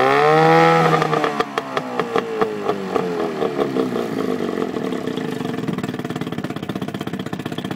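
Evinrude 9.9 horsepower outboard engine running: its speed rises briefly near the start, then falls off over a few seconds and settles to a low, steady idle with an even, rapid firing pulse.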